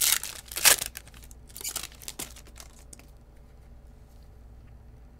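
Foil trading-card pack wrapper being torn open and crinkled: a run of sharp rips and rustles, loudest in the first second and trailing off about three seconds in.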